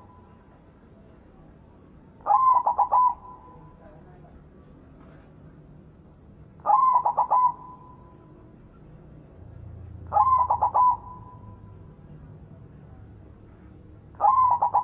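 White zebra dove cooing: four of its short staccato coo phrases, each a quick run of notes that ends in a held tone, spaced about every four seconds.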